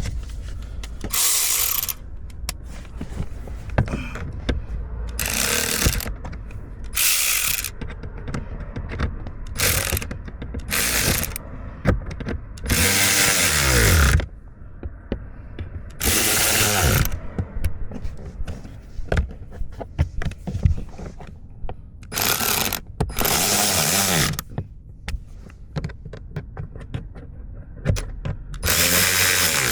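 Power driver running in short bursts of a second or two, about nine times, its motor pitch rising and falling as it drives the trim-panel bolts back in. Clicks and knocks of tool handling come between the bursts.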